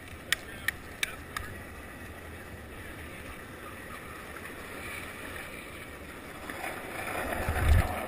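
Longboard wheels rolling over city asphalt: a steady rumble, with a few sharp clicks in the first second and a half. A loud low thump comes near the end.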